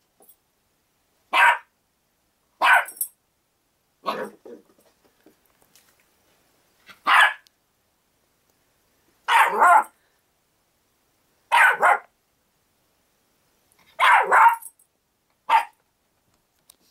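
Six-month-old Havanese-poodle mix puppy play-barking: loud, sharp barks, singly and in quick pairs, with gaps of one to two seconds of quiet between them.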